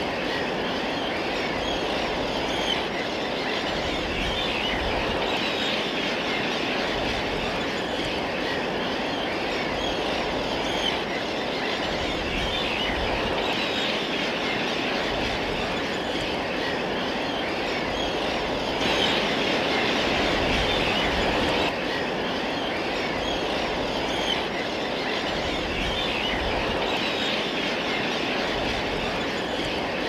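Steady, dense chatter of a huge flock of shorebirds calling and flying, over a rumble of surf, swelling for a few seconds about two-thirds of the way through.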